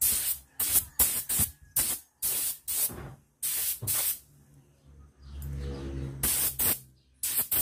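Paint spraying in about a dozen short hissing bursts, each under half a second long, with a low hum lasting about a second a little past the middle.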